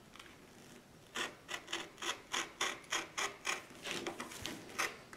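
Box cutter blade slicing through folded posterboard in a run of short strokes, about three a second, starting about a second in.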